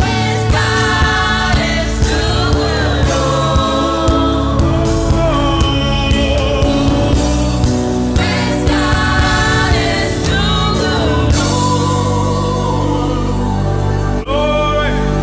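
Gospel worship song: a group of singers in harmony over a band with a steady drum beat. About eleven seconds in the drums drop out and the voices continue over a held chord.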